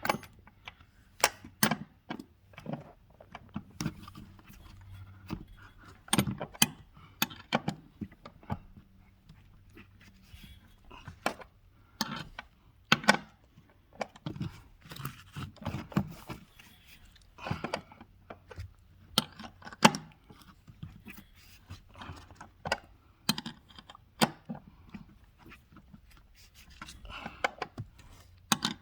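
Scattered metallic clicks, clinks and knocks of hand tools and seat belt buckle hardware being handled while the buckle's mounting bolt is fitted and tightened, coming at irregular moments.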